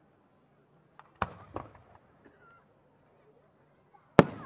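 Fireworks: two sharp pops about a second in, then near the end a much louder bang and a second crack with a rolling echo after, as a peony (botan) aerial shell bursts.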